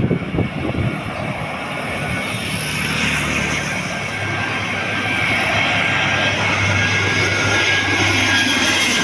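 Airbus A320-family twin-engine jet airliner on final approach with gear down, passing low overhead: the jet engine noise grows louder over the first few seconds and then holds loud and steady, with a high whine over a low hum. Gusts of wind on the microphone at the start.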